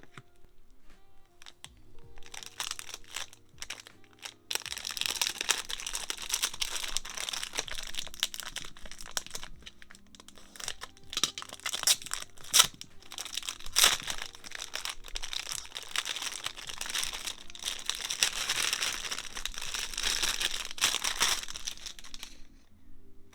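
Packaging crinkling and rustling as it is handled and opened, a dense run of small crackles. Soft background music plays under it.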